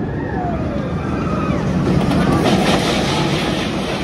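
Roller coaster train rolling on its steel track with a loud rumble that swells toward the middle, a few brief falling whines riding over it.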